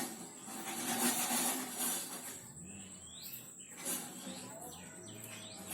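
Steady background hiss, with a few short bird chirps about halfway through and again near the end.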